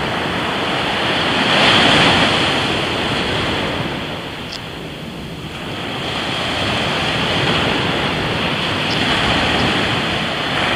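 Ocean surf washing onto the beach, with wind on the microphone; the wash swells loudest about two seconds in and eases off around five seconds.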